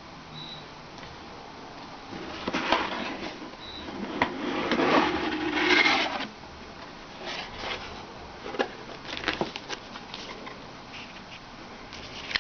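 Packaging being handled and opened: rustling and scraping, loudest from about two to six seconds in, then scattered light clicks and taps.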